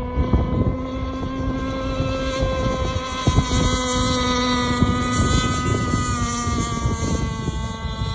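Two-stroke gas engine of a Bonzi Sports 47 Skater RC catamaran running flat out across the water: a steady, high-pitched engine whine whose pitch climbs a little and then eases slightly near the end. Wind rumbles on the microphone underneath.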